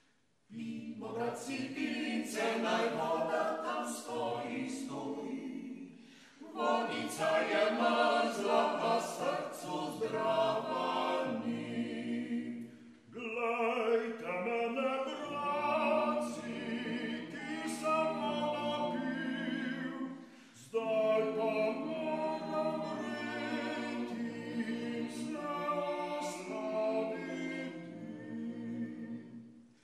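A small mixed vocal quintet, four men and a woman, singing unaccompanied in close harmony. The song comes in four phrases with brief breaks between them, and the voices stop just before the end.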